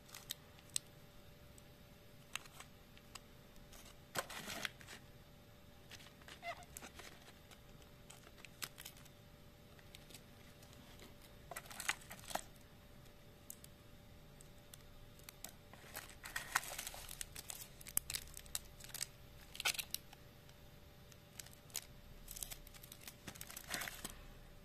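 Intermittent rustling and crinkling of shredded paper filler and plastic candy wrappers as hands rummage through a box of chocolates, with scattered light clicks and taps; busiest about halfway through and again near the end.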